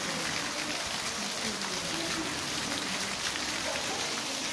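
Heavy downpour: a steady, dense hiss of rain falling on hard surfaces.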